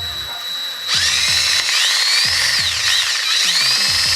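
Power drill with a 5/16 bit running, first a steady whine, then from about a second in cutting through a hole with a loud high screech that rises and falls in pitch.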